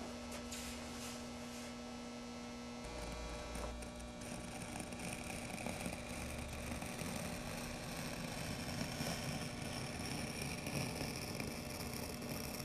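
A steady low electrical hum, then, from about three seconds in, faint scratching and rustling of an X-Acto knife cutting through paper application tape.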